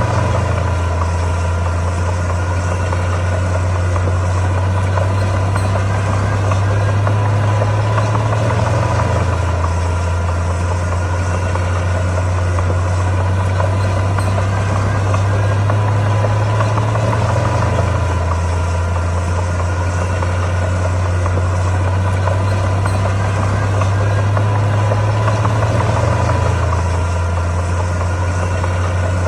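Komatsu D41P bulldozer's diesel engine running steadily under work, its low note stepping between two pitches about every eight to nine seconds.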